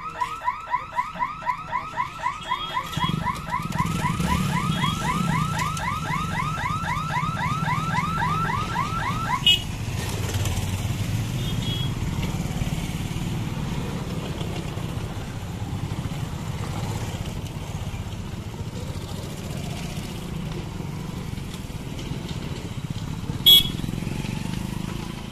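Level-crossing warning hooter sounding in rapid repeating chirps, about three a second, as the boom barrier lifts, cutting off suddenly about nine seconds in. Motorcycle and scooter engines run underneath as traffic crosses the tracks, with a short sharp clack near the end.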